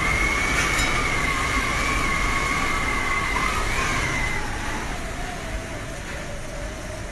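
Storm-force wind rushing through thrashing coconut palms, with a wavering high-pitched howl over the first four seconds that gives way to a lower howl as the gusts ease slightly.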